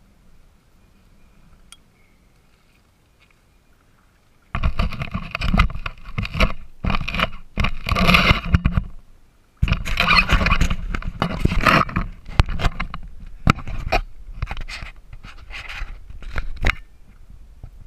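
Loud handling noise close to the camera: a kayak paddle and hands scraping and knocking against the plastic kayak bow and the camera mount, in irregular bursts with sharp clicks, starting about four and a half seconds in.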